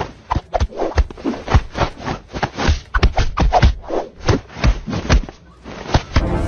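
Irregular scratching and scraping, a rapid uneven run of short scrapes and rubs with a few faint squeaks among them.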